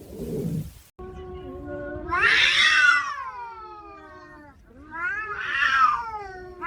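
A cat yowling: two long drawn-out calls, each swelling and then falling in pitch, the first starting about a second in and the second near the end. Before them a short low sound cuts off abruptly.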